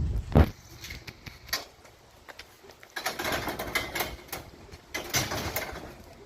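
A sharp knock, then after a quiet spell a run of rattling metal clatter, as of scrap items such as an ironing board being handled and moved.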